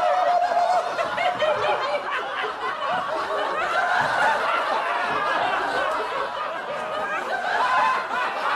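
A group of men in a boardroom laughing together, with several voices snickering and chuckling over one another throughout.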